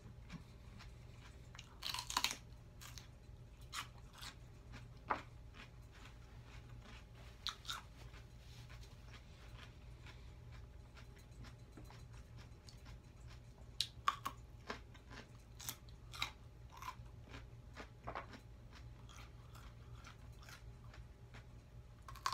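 Close-up chewing and crunching of raw celery and carrot sticks: irregular crisp crunches between quieter chewing, the loudest about two seconds in and again around fourteen seconds, over a faint steady low hum.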